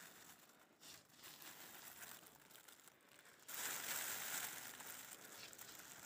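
Close rustling and crinkling near the microphone, much louder from about three and a half seconds in.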